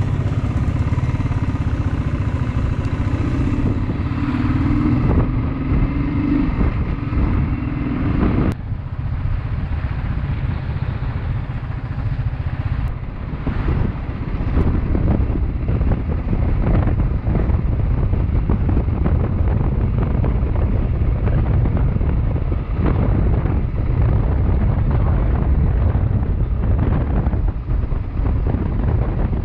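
Motorcycle engine heard from the rider's seat: a steady engine note for about the first eight seconds, then an abrupt change to engine noise mixed with wind on the microphone as the bike rides along.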